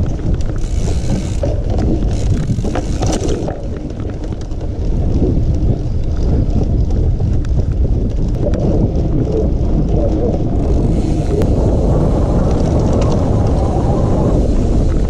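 Mountain bike being ridden along a trail: a steady noise of the ride with wind on the microphone, getting louder about five seconds in.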